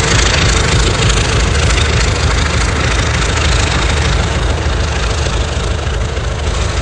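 Diesel locomotive engines running, a steady heavy drone with a deep rumble, easing off slightly near the end.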